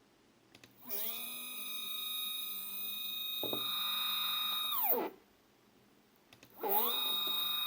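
Two stepper motors wired in parallel on one driver running a fast move. About a second in, a whine rises in pitch as they accelerate, then holds steady at speed. Around five seconds in it falls in pitch as they decelerate to a stop, and after a short pause it rises again and holds near the end.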